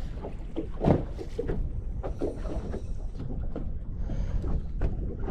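Scattered handling knocks and clicks, the loudest about a second in, over a steady low rumble on a boat.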